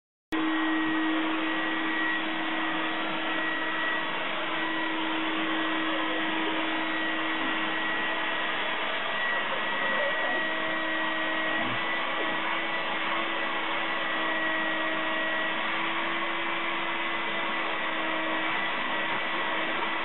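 An electric motor running steadily: an unchanging whir with a constant hum and a thin high whine.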